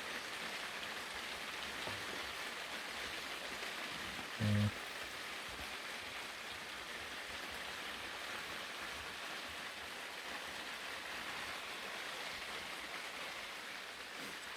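Steady rain pattering on a tent roof. A brief low hum about four and a half seconds in is the loudest sound.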